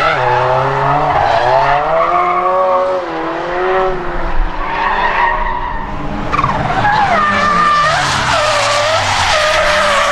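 Toyota GT86 drift car's engine revving up and down through a drift, with tyres screeching; the tyre noise grows stronger in the second half.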